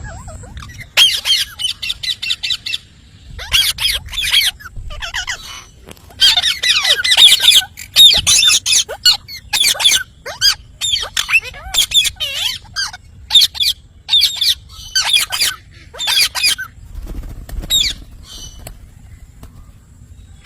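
Parrot squawking: runs of short, harsh, high-pitched screeches, broken by brief pauses about three, five and seventeen seconds in.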